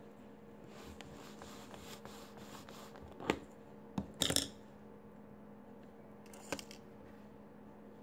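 A few light clicks and taps of small watch parts and tools handled on a tabletop, with the loudest quick cluster about four seconds in and a single click near the end. A steady low hum runs underneath.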